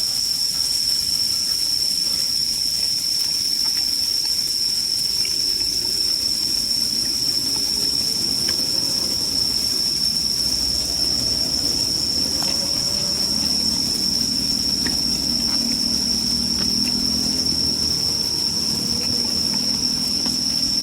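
Crickets chirring in one continuous high note, over a steady low rushing hiss with a few faint clicks.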